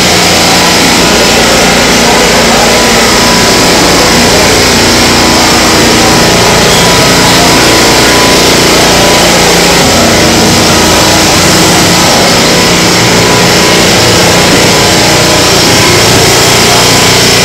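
Walk-behind motorised floor-cleaning machine running steadily as it is pushed along, a loud continuous machine noise with several steady tones.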